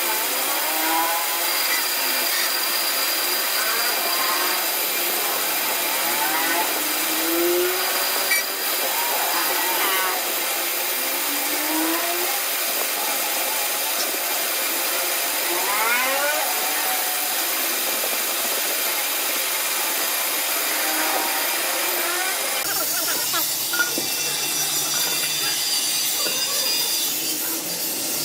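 A power tool running steadily, a continuous hiss with repeated short rising and falling pitch sweeps. A lower hum joins near the end.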